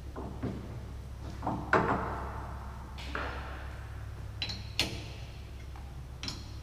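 Knocks and clunks of a heavy aluminum round being set into the steel jaws of a lathe chuck, the loudest about two seconds in, followed by a few sharper metallic clicks in the second half as the chuck is worked. A steady low hum runs underneath.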